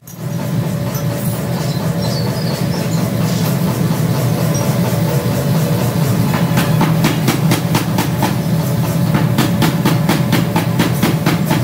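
Steady low mechanical drone of heavy machinery running. A fast, even clatter of clicks joins it about six and a half seconds in.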